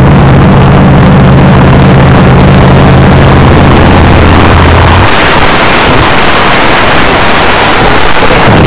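Fuel altered drag cars' nitro-burning engines running very loud and distorted. A steady low engine note about five seconds in breaks up into a harsher, rougher blast.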